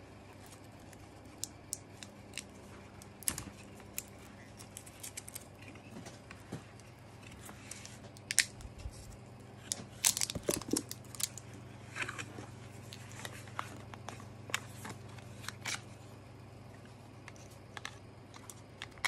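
Plastic shrink-wrap being peeled and torn off a pair of AA batteries by hand: scattered crinkles, small tears and clicks, busiest about ten seconds in, then light clicks of handling a remote control's open battery compartment.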